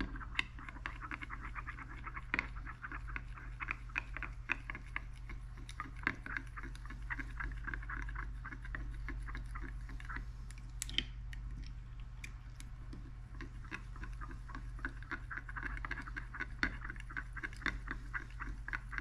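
A metal stir rod scraping and clicking rapidly against the sides of a glass measuring cup while stirring colourant and flake into liquid soft plastic, over a steady low hum.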